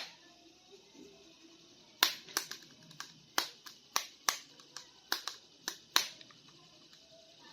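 About a dozen sharp, irregular clicks and taps of hard plastic, as toy figures and their packaging are handled.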